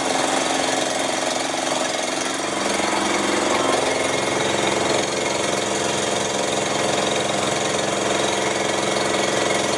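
An engine running steadily at an even speed, with a rapid knocking beat.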